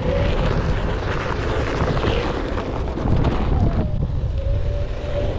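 A VESC-controlled Onewheel XR riding over loose dirt: the tyre rumbling and crunching on the ground, with wind buffeting the microphone and a faint hub-motor whine that wavers slightly in pitch.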